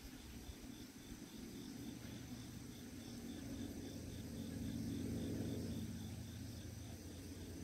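Crickets chirping in a fast, even pulse, with a low rumble that swells about halfway through and then fades.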